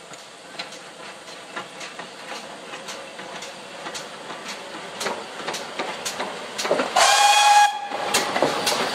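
GWR Modified Hall 4-6-0 steam locomotive No. 7903 'Foremarke Hall' approaching and passing under steam, its exhaust beats coming about twice a second and growing louder as it nears. About seven seconds in it gives one short blast of under a second on its whistle, the loudest sound.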